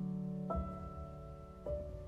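Slow piano music: a held chord fades, with a new note struck about half a second in and another near the end.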